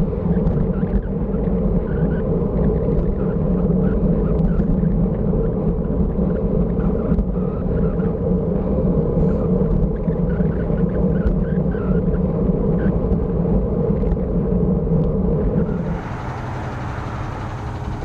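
Steady low rumble of wind buffeting the microphone and tyre noise from a road bike riding along a street. About two seconds before the end it drops a little and becomes a hissier, steadier background.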